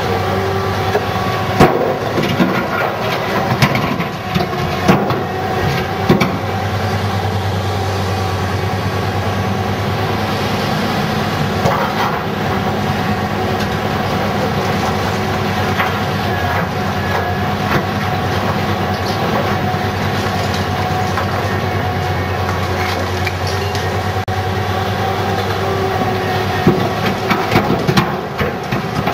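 Komatsu PC750SE-7 excavator's diesel engine running steadily under load throughout. In the first few seconds and again near the end there are loud clattering bangs as blasted basalt drops from the bucket into the Komatsu HD605 dump truck's steel bed. In between the engine runs on with only scattered knocks while the bucket digs into the rock pile.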